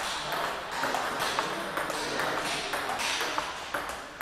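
Table tennis rally: the ball clicking off the paddles and bouncing on the table in a quick back-and-forth, over the steady background noise of the hall.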